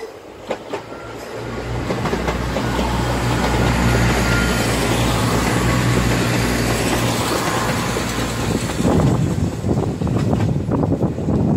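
Two Class 170 Turbostar diesel multiple units running together pass close by. The low hum of their underfloor diesel engines builds over the first couple of seconds and holds steady, then from about eight seconds in the wheels click rhythmically over the rail joints as the rear of the train goes by.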